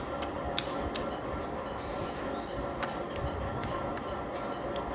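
A few small, sharp clicks at irregular moments over a steady background hiss.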